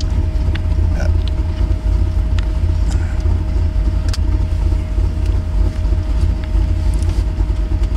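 Square-body Chevy 4x4 truck's engine running at low speed, heard from inside the cab: a steady deep rumble with a thin, steady whine over it. The driver says it is idling lower than usual and running rich up at this high elevation.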